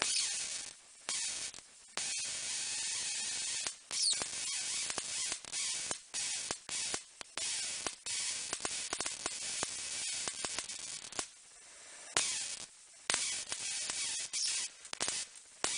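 High-voltage electric arc from a TV flyback transformer driven by a single KT908 transistor, hissing and crackling. It cuts out and restarts abruptly every second or two.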